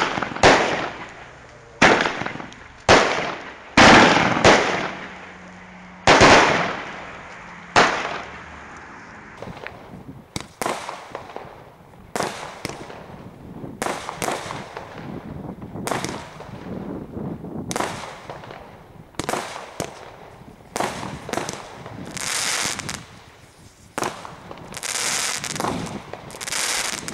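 Consumer firework cakes firing in the open. Loud, sharp shots come about once a second at first, each ringing off. From about nine seconds in, a second cake fires quieter bursts at a similar pace, some of them crackling, until the sound stops abruptly at the end.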